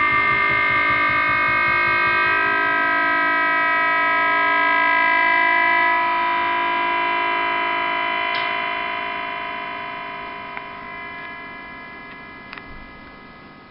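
Experimental drone from an electric guitar and keyboard rig: a dense chord of held tones, throbbing quickly at first, then slowly fading away over the second half, with a few faint clicks near the end.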